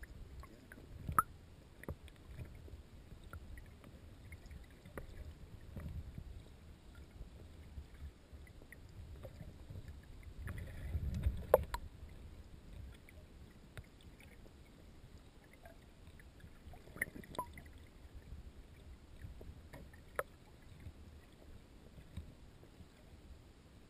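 Low, muffled water rumble from an inflatable kayak moving through a river, heard through a GoPro's sealed waterproof housing held under the water. The rumble swells a few times and is broken by scattered sharp knocks; the loudest knock comes about halfway through.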